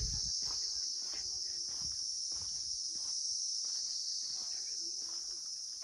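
Insects chirring in a steady, unbroken high-pitched drone, with a few faint ticks beneath.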